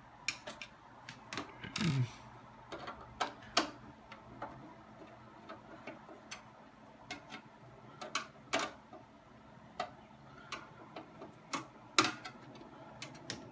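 Irregular sharp clicks and knocks of hands handling a metal-and-plastic desktop PC tower case, over a faint steady hum.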